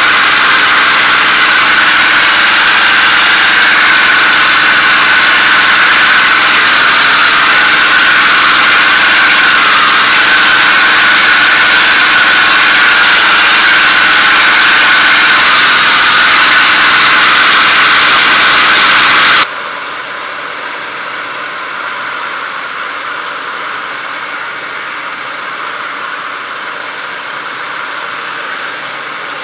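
P-51 Mustang's V-12 engine and propeller in cruising flight, heard from inside the cockpit as a loud, steady drone with airflow noise. About two-thirds of the way through the sound drops abruptly to a quieter, more muffled drone.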